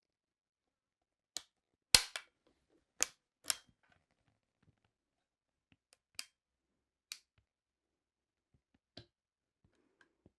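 About eight sharp metallic clicks and clacks, spaced irregularly, from the action of a 20-bore Beretta 687 EELL over-and-under shotgun being closed, tripped and slowly opened on snap caps, the loudest about two seconds in. It is an ejector-timing check, and it shows the timing is out: the top barrel ejects only when the gun is forced right open.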